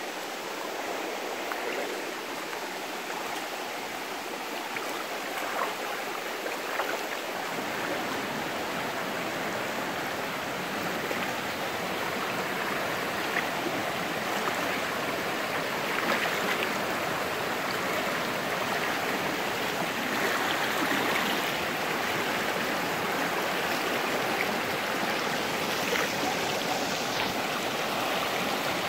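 Shallow, fast river flowing over rocks: a steady wash of running water that grows a little louder and fuller about seven seconds in.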